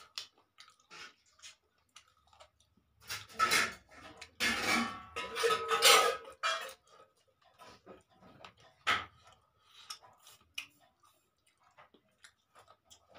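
Eating with the fingers from a steel plate: small clicks and scrapes of fingers and mutton pieces against the metal, with chewing sounds. A louder stretch of scraping, with the plate ringing, comes in the middle, and a single sharper click a little later.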